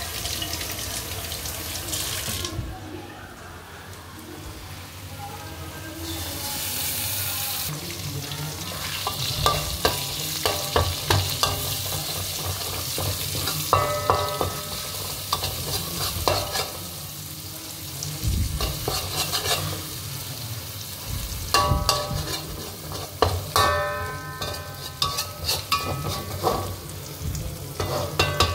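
Tap water runs over an egg being rinsed for the first couple of seconds. Then an egg frying in a wok with pounded onion, garlic and chilli paste sizzles, while a metal spatula repeatedly scrapes and knocks against the wok, making it ring.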